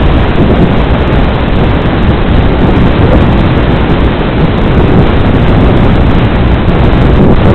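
Loud, steady rushing hiss from an FPV plane's analog video link audio: static from a weak, breaking-up video signal, with wind rush mixed in.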